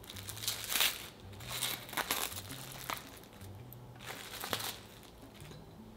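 Aluminium foil crinkling in several irregular bursts as it is unwrapped from a metal cake ring mould.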